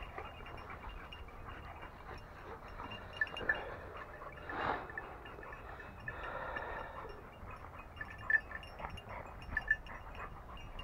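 Pack of hunting hounds worrying a freshly shot wild boar: faint scuffling and tugging at the carcass, with a few brief louder bursts and occasional light clinks.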